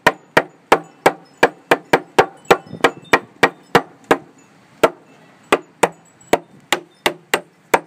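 Claw hammer striking a pressure-treated 2x6 deck joist, about three sharp blows a second, tapping the board sideways into position in the frame. The blows pause briefly just past halfway, then carry on a little more spaced out.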